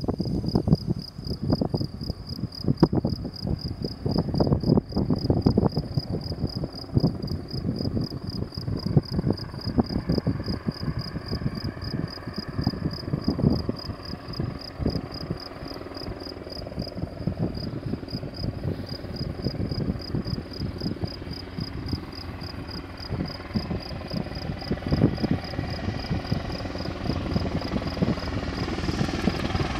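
Sikorsky S-70i Black Hawk helicopter in flight, its main rotor chopping steadily and its twin turbines growing louder near the end as it comes closer. Crickets chirp in a steady, fast high pulse throughout.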